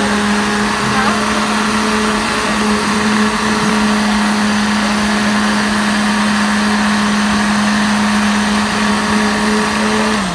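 Commercial high-speed blender running at full speed through a jar of fruit slushie, a loud, steady motor hum at one unchanging pitch over the churning of the mix. Right at the end the pitch starts to drop as the motor is switched off and winds down.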